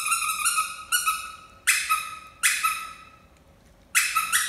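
Squeaky toy squeezed over and over: a warbling run of high squeaks, then single squeaks each fading away, about one a second, and two quick ones near the end.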